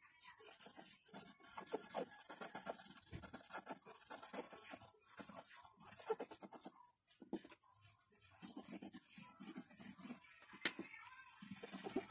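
Drawing tool rubbing and scratching on paper in short shading strokes, with pauses between them, and a single sharp click a little before the end.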